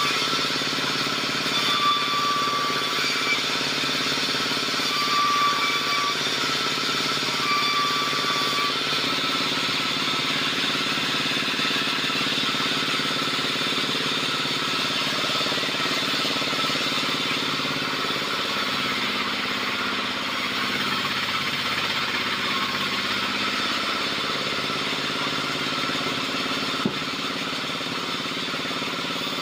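Wood bandsaw mill running steadily. About four short high-pitched whines come in the first nine seconds or so while slabs are fed through the blade.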